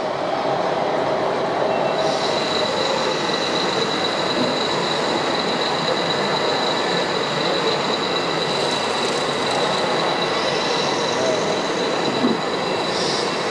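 Steady high-pitched whine of a small electric motor, like the hydraulic pump of a radio-controlled construction model, setting in about two seconds in over a constant hall din.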